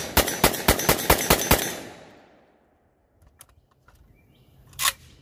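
Kalashnikov USA Komrad 12 semi-automatic 12-gauge shotgun with a muzzle brake, fired rapidly: about seven shots at roughly four a second, stopping about a second and a half in, the echo dying away. Faint clicks follow as the magazine comes out, then a few sharp knocks near the end.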